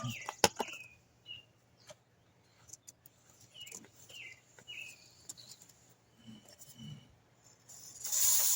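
A small bird chirps a few short times in the background, and near the end a short burst of hiss from an aerosol can of chain cleaner being sprayed onto the motorcycle chain. A couple of sharp clicks come right at the start.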